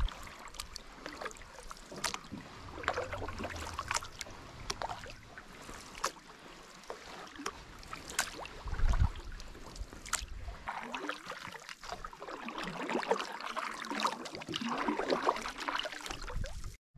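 Canoe paddles dipping and pulling through calm lake water, with splashes and drips trickling off the blades and a few sharp ticks between strokes.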